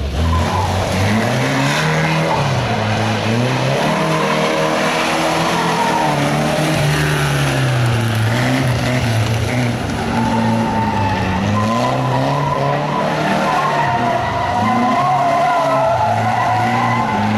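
Car engine driven hard, its pitch repeatedly rising and falling as it revs up and backs off through tight turns, with tyres squealing as the car slides.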